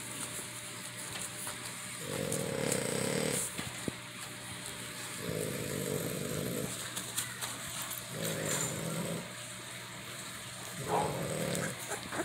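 Two-week-old American Bully puppy breathing noisily: four low rasping breaths, each about a second long, roughly every three seconds.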